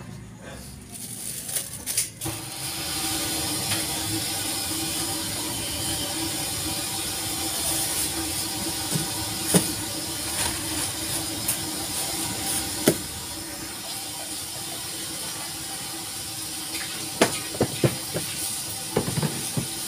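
A steady hiss that comes on about two seconds in and holds, with scattered clicks and knocks of plastic bags and containers being handled, more of them near the end.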